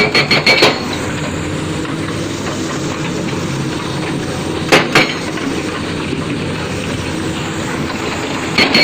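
Heavy construction machinery running steadily under load, with loud metallic clanks: a quick run of several at the start, two a few seconds later and another cluster near the end.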